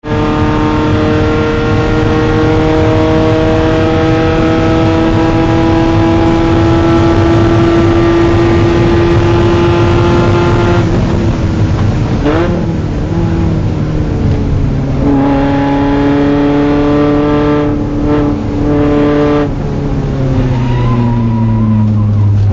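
Car engine at high revs, heard from inside the cabin on a track lap. Its pitch climbs steadily for about ten seconds, then drops and breaks as the car slows for a corner. It climbs again, cuts briefly a couple of times around eighteen seconds, and falls in pitch near the end.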